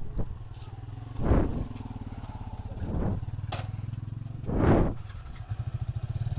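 Yamaha Vixion's single-cylinder four-stroke motorcycle engine running at low speed with a steady, pulsing note. Three short, louder whooshes come at roughly even intervals over it.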